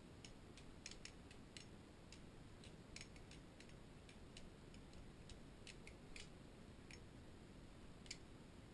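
Balisong (butterfly knife) being flipped by hand: a scattering of faint, sharp metal clicks at uneven spacing as the handles swing around and tap against each other and the blade.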